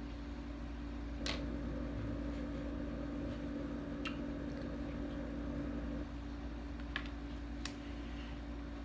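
A steady low machine hum, with a few light clicks and taps scattered through it.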